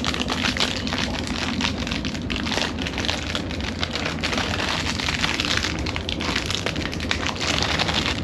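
Plastic snack packet of Bombay mix crinkling and crackling as it is handled and worked at to open, over the steady low rumble of the moving train.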